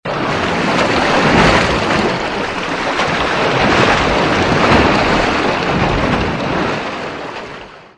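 A loud, even rushing noise with no clear tone, swelling twice and fading out near the end.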